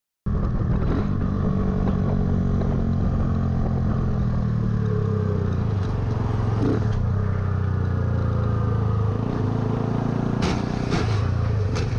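Motorcycle engine running steadily while riding in highway traffic, heard from the rider's own bike and cutting in abruptly just after the start. A few sharp clicks come near the end.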